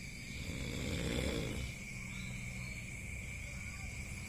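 A person snoring: one long, rough snore for about the first second and a half, then quieter breathing. A steady high-pitched tone runs underneath.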